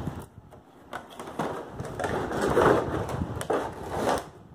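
Cardboard box and clear plastic packaging scraping and crinkling as a packed toy set is slid out of the box by hand, with a few small knocks; loudest a little past the middle.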